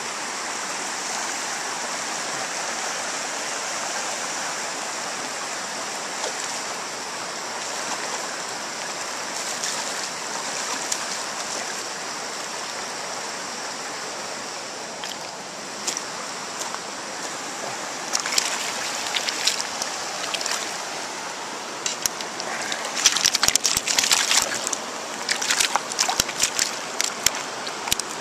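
Shallow river water rushing steadily over stones. From about two-thirds of the way in come irregular sharp splashes and knocks, loudest near the end, as a small hooked Atlantic salmon is drawn into the shallows and thrashes.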